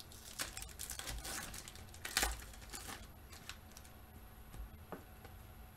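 Football trading cards being shuffled and slid against one another in the hands: a series of faint papery clicks and rustles, busiest in the first three seconds.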